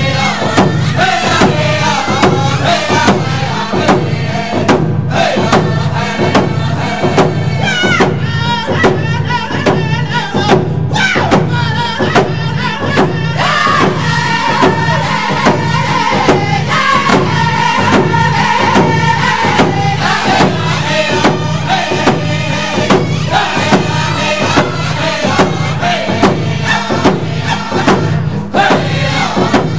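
Group of singers chanting together over a steady, evenly spaced drumbeat, in the style of a Cree drum group.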